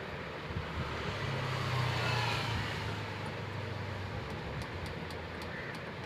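Electric coil winding machine running, spinning fast as it winds wire onto a ceiling fan's running coil, with a steady low hum that is strongest in the first half and a few faint ticks near the end.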